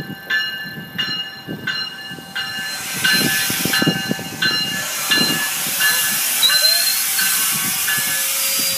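GO Transit bilevel commuter train rolling in along the platform, its cars rumbling and hissing past, with a bell dinging steadily about one and a half times a second. A short rising squeal comes about six and a half seconds in.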